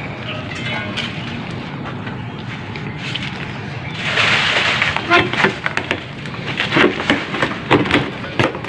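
Handling noises at an opened metal casket: a rustle starting about four seconds in, then a run of short knocks and scrapes as a worker reaches into the casket with a small scoop.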